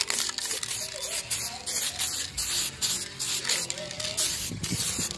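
Aerosol spray-paint can hissing in a series of short bursts.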